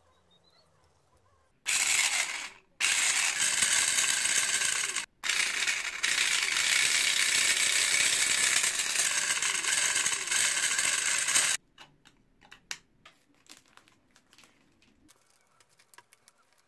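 A small brushed DC motor driving a spur-gear reduction runs off a 12 V car battery, its gears meshing loudly. It starts about two seconds in, runs for about a second, then again for a couple of seconds, then for about six seconds before cutting off suddenly. A few light clicks follow.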